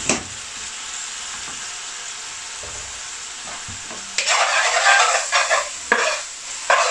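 Diced onions sizzling gently in oil in an aluminium pan, softening on low heat. There is a short clink at the start as the glass lid is set down, and from about four seconds in a metal spoon stirs and scrapes the onions against the pan in loud bursts.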